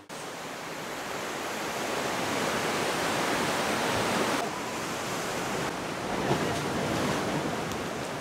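Ocean surf washing and breaking over rocks: a steady rushing noise that swells and eases, with some wind on the microphone.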